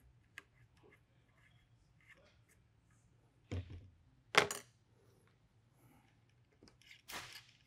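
Hand tools being handled on a workbench while screws are driven into an air rifle's chassis. Faint clicks, then two sharp knocks about a second apart near the middle as a T-handle hex key is set down, the second the loudest, and a brief rattle near the end.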